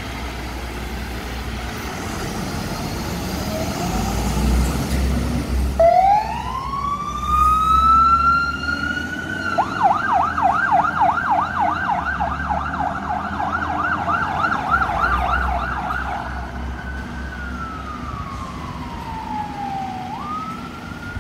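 Fire engine's diesel engine pulling away. About six seconds in, its siren starts: a rising wail, then a fast yelp of about three sweeps a second, then a slow falling wail that jumps back up near the end.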